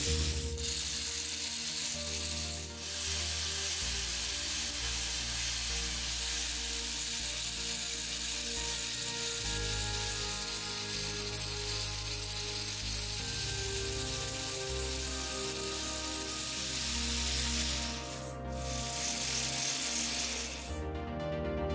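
Background music: sustained chords over a deep bass that changes note every few seconds, with a steady hiss underneath.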